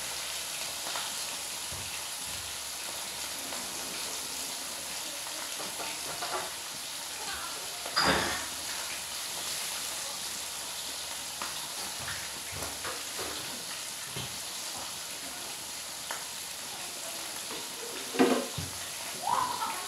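Food frying in oil in a pan on a gas stove: a steady sizzle throughout, with two louder sharp sounds, one about 8 seconds in and one near the end.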